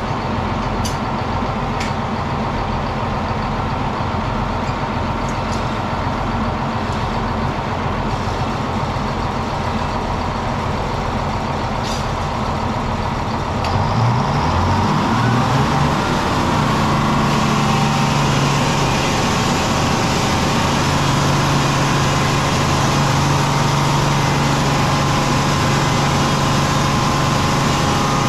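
Circular sawmill machinery running with a steady engine drone. About halfway through, the drone rises in pitch and holds steady, a little louder. There are a few short knocks in the first two seconds and one near twelve seconds.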